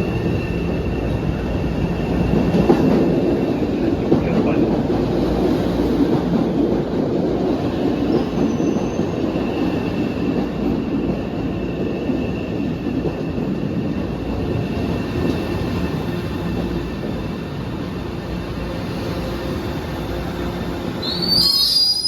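MBTA train running along the track with a steady rumble, and a brief high wheel squeal near the end.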